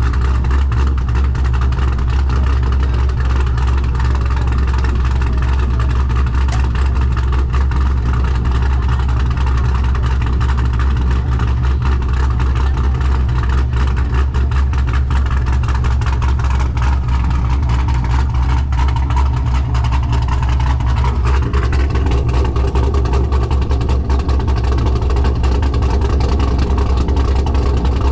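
A car engine idling steadily, its low note shifting slightly about three quarters of the way through.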